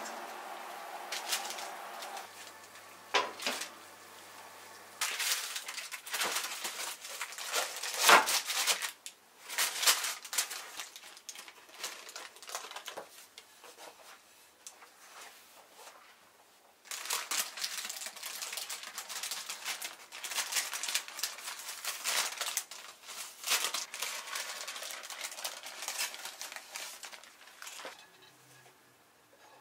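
Crinkling and rustling of cling film and baking paper being handled around a sponge cake, broken by a few sharp knocks, the loudest about eight seconds in.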